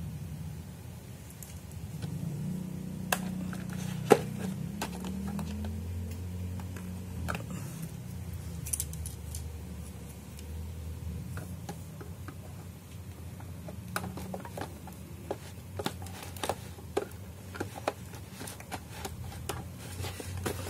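Scattered small clicks and taps of plastic toy pieces being handled, over a steady low hum; a sharp click about four seconds in is the loudest. Near the end the clicks come thicker as scissors snip at the packaging.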